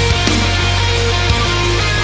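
Loud background rock music in a heavy-metal style, with sustained low notes and occasional sharp drum hits.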